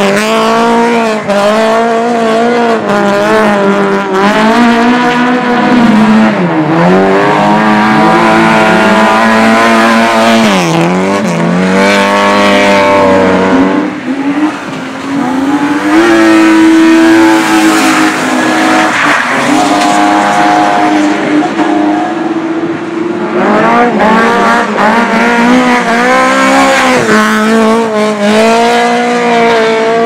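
Rally car engines driven hard on a dirt track, revving up and dropping back again and again with gear changes and throttle lifts as the cars slide through the corners. Midway one engine holds a steady high note for several seconds before the revving resumes.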